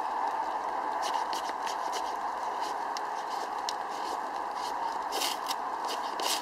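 Rain pattering steadily, with irregular sharp taps of drops landing close by.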